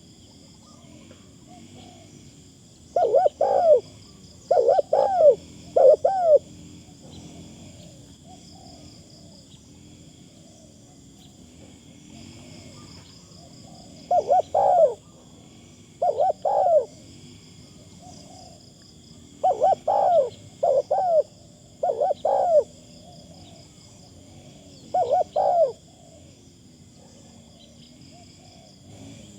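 Spotted dove cooing: short groups of deep coos, each group a second or so long, repeated several times with pauses of a few seconds between them. A faint steady high-pitched whir runs underneath.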